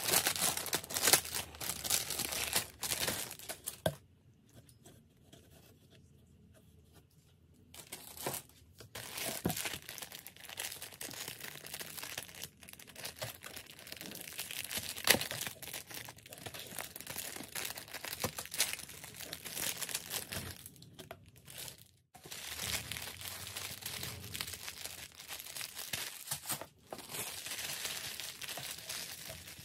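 Thin clear plastic packaging crinkling and tearing as hands pull open and handle bagged items in a cardboard box. It goes quiet for about four seconds starting about four seconds in, then the crinkling resumes.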